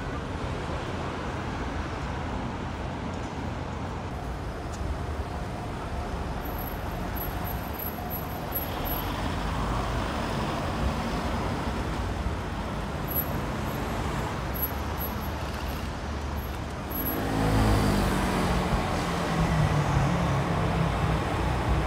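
Street traffic noise, a steady hum of passing cars. About seventeen seconds in, a vehicle engine close by gets louder, its pitch falling and then rising.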